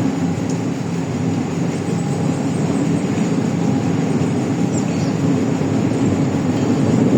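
Hydraulic excavator's diesel engine running steadily under load, a continuous low drone.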